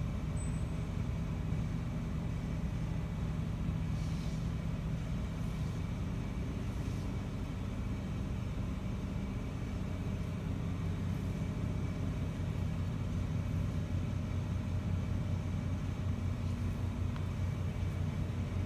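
Steady low rumbling hum with no distinct events.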